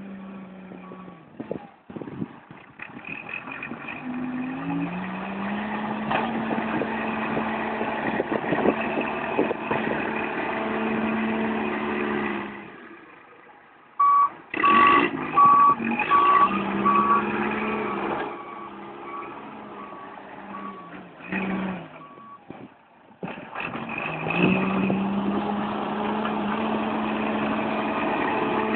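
A heavy vehicle's engine revving up and running under load, dying away and picking up again. Partway through, a reversing alarm sounds a run of evenly spaced beeps.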